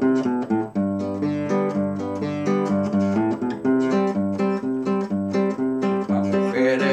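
Classical nylon-string guitar strummed in a steady, even rhythm, with bass notes between the chord strokes, playing an instrumental passage of a Mexican ranchera song.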